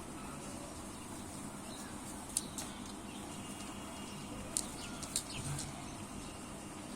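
Pet parrots making a few short, sharp high-pitched sounds, two near the middle and three more a couple of seconds later, over a steady background hiss.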